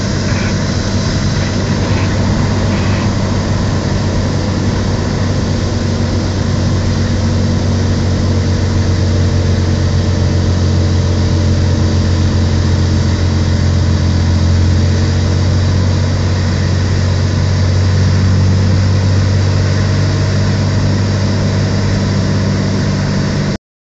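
A Cessna 206's six-cylinder piston engine and propeller droning steadily, heard from inside the cabin during the landing approach and touchdown.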